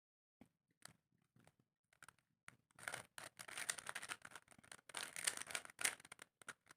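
Rubik's cube being twisted by hand: a quick run of faint plastic clicks and scraping as its layers turn, starting a little under three seconds in after a few isolated ticks.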